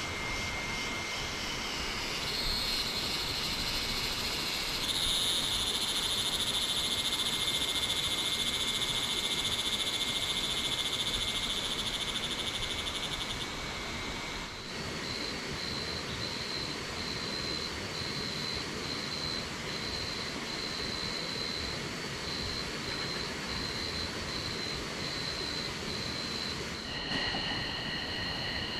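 Dusk chorus of forest insects: several steady, shrill high-pitched calls over a constant rush of waterfall noise. About halfway through the chorus changes to a call that pulses on and off about once a second, and near the end new steady tones join.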